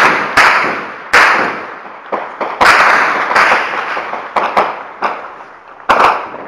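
Gunfire: about ten single shots at irregular intervals, some in quick pairs, each cracking loud and then echoing away over about a second. The loudest shots come at the start, about a second in, and near the end.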